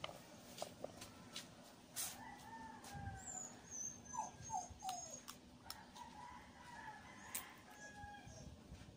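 Peanut shells being cracked open by hand, in scattered sharp clicks and cracks. Faint wavering whines from an animal run from about two seconds in to near the end.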